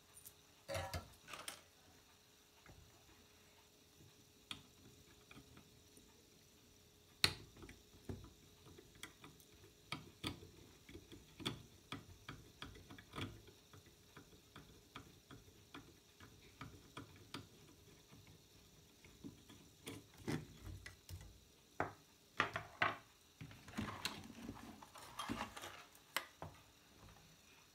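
Scattered light clicks and taps of a screwdriver and hands working on a CRT TV circuit board, with a cluster of louder knocks and rustling near the end as the board is lifted and turned over.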